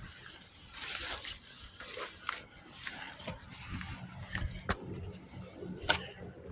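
Rustling of brush and footsteps as someone pushes through plants on a slope, with scattered sharp clicks and snaps.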